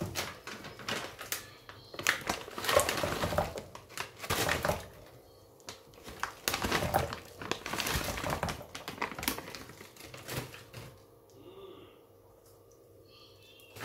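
A plastic bag crinkling as lumps of jaggery are tipped from it into a stainless steel pot of water, with quick clicks and knocks of the lumps. It goes quiet about eleven seconds in.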